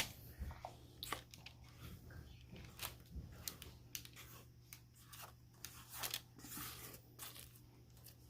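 Cake batter being scraped out of a mixing bowl into a baking pan with a spatula: soft, irregular scrapes and light taps of utensil on bowl.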